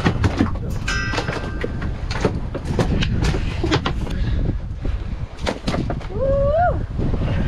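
Irregular knocks and thumps in a sailboat's cockpit as a freshly landed mahi-mahi and a hand-line reel are handled, over steady wind noise on the microphone. A short squeak rises and falls about six seconds in.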